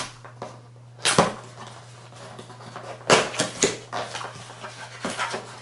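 A small cardboard box being opened by hand: the tape seal peeled off and the flaps pulled open, giving short scraping, rustling bursts about a second in, again around three seconds in, and near the end.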